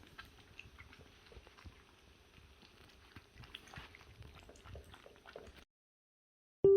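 Pomeranian puppy eating dry kibble, with faint crunching and small clicks of food and bowl. It cuts off suddenly about five and a half seconds in.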